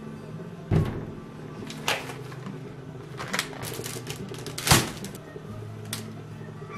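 Groceries being set down and handled on a stainless steel kitchen counter: several separate knocks, the loudest about two-thirds through, with plastic packaging rustling between them, over a steady low hum.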